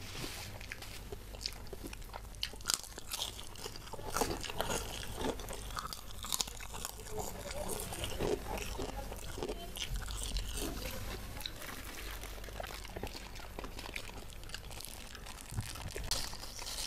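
Close-miked chewing of spicy quail-egg meatballs in sambal: wet mouth sounds with irregular crunching and smacking. Near the end, a plastic bag crinkles.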